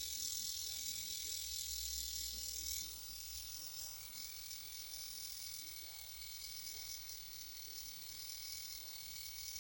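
Small battery-powered eyebrow trimmer running with a steady high buzz that softens about three seconds in, leaving a thin steady whine.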